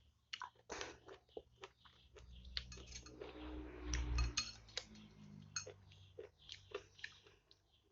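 Close-miked mouth sounds of someone eating chicken noodles: wet smacks and clicks of chewing throughout. A longer, louder noisy stretch swells about three to four seconds in.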